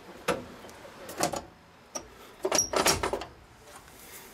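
Metal control levers and switches in an old locomotive cab being worked by hand, giving sharp clicks and clunks: single ones about a second apart, then a quick run of them about two and a half seconds in.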